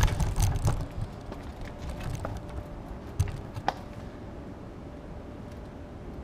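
A cluster of knocks and rustling in the first second, then a few single sharp clicks, over a steady low rumble.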